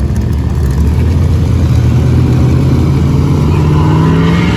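Diesel pickup truck engine on heavy throttle, its pitch climbing steadily over the last couple of seconds as it revs up, while the truck blows black smoke from running rich under load.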